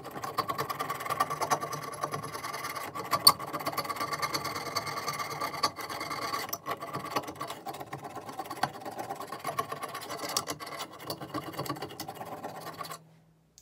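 Knife blade scraping thick black paint off a steel axe head by hand: a continuous rasping made of quick, short strokes. It stops abruptly near the end.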